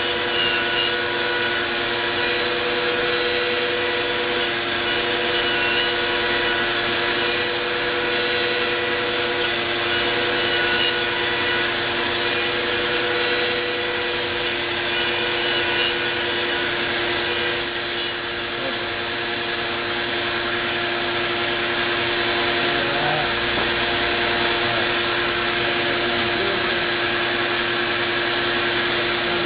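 CNC router spindle running steadily while its end mill cuts a Lexan (polycarbonate) sheet: a continuous whine with a dense cutting hiss. About eighteen seconds in, the sound briefly changes and drops a little in loudness, then carries on.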